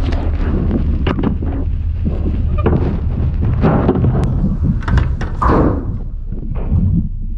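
Steady low rumble with scattered knocks and thuds.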